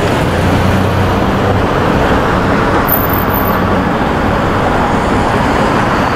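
City street traffic: a pickup truck drives past close by, its engine hum fading after about two seconds, over a steady wash of passing cars.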